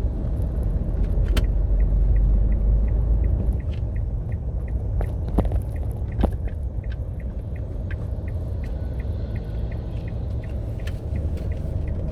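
Low, steady engine and road rumble of a manual pickup truck being driven, heard from inside the cabin, with a light, evenly repeating ticking over it.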